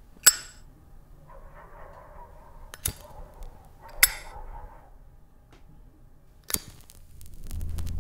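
A flip-top Zippo-style lighter being handled: four sharp metallic clicks, one to three seconds apart, with a faint hiss between the second and third. A low steady hum comes in near the end.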